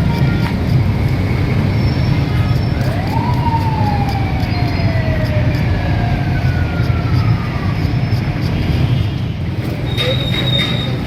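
Busy street traffic rumbling steadily. About three seconds in, a whine rises quickly and then falls slowly, like a siren's wail or a passing engine winding down.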